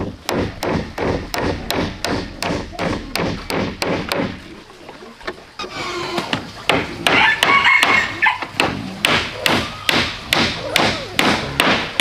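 A hammer drives nails into wooden roof planks in steady blows, about three a second. The blows stop for a moment after about four seconds, then start again. For a couple of seconds in the middle, an animal's call rises over the hammering.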